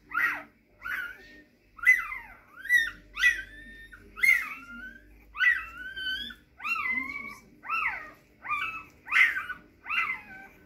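Newborn Rhodesian ridgeback puppies squeaking and whining while they nurse: a continuous series of short, high-pitched cries, some sliding down and some rising, more than one a second.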